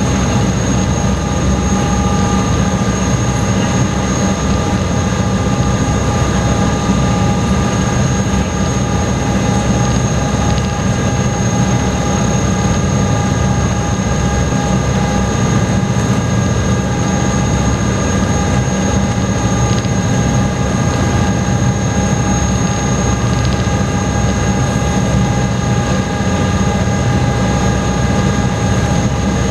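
High-speed passenger ferry's engines running steadily under way, heard inside the cabin: a loud, even low rumble with a few steady whining tones above it.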